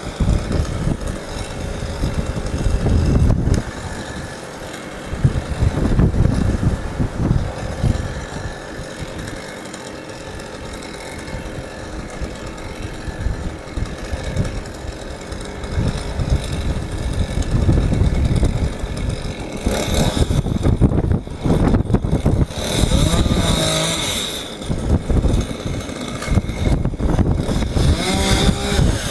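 Two-stroke top-handle chainsaw running up in the tree, idling and then revved up in turn, its pitch rising and falling.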